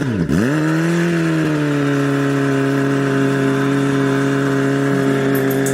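An engine revved in a few quick blips, then held at steady high revs.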